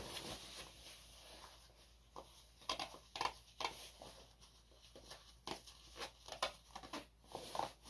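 Softshell jacket being handled: a run of short, faint, scratchy rustles of fabric and fastenings, mostly from about two and a half seconds in.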